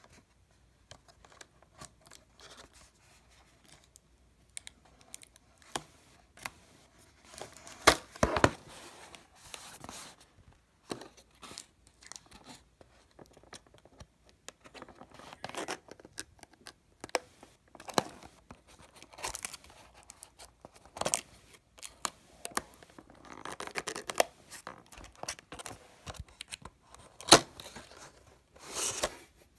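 Fingernails scratching at and peeling clear adhesive tape seals off a cardboard cable box, with short tearing and ripping sounds and the rustle of the box being handled. The loudest rips come a little under 8 s in, near the middle of the last few seconds and just before the end.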